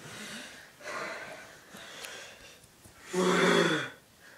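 A person breathing hard in a few heavy, breathy puffs, then a short voiced groan with a falling pitch about three seconds in.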